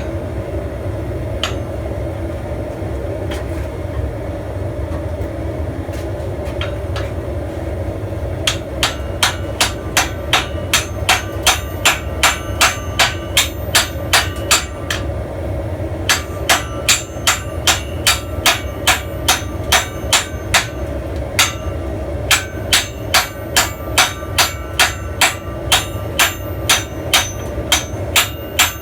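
Blacksmith's hammer striking steel on an anvil while forging a spear. At first there are only a few scattered taps, then steady ringing blows at about three a second, in three runs with short pauses between. A steady low drone runs underneath.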